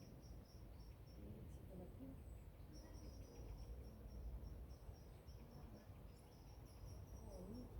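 Faint, quick, high chirping of a cricket, about five chirps a second, breaking off for about a second near two seconds in, over a low outdoor rumble.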